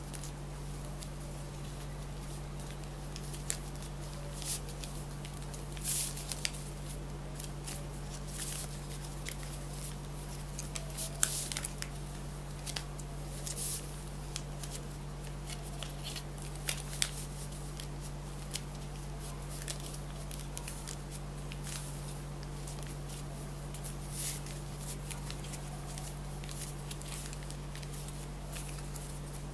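Sheet of paper being handled and folded for origami: short scattered rustles and crisp crackles, busiest in the first two-thirds, over a steady low hum.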